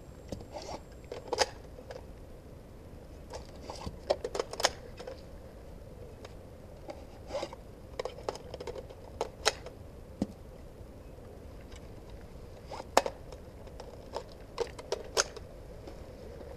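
Airsoft rifle firing single shots: short sharp clicks at irregular intervals, some in quick clusters of two to four.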